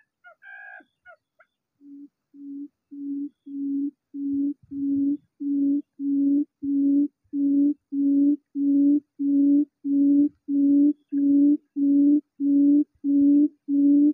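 Recorded buttonquail call played through a Bluetooth speaker as a lure at a bird snare: a train of low hoots, about two a second, growing louder over the first few seconds and then going on steadily. Faint high chirps come before it in the first second or so.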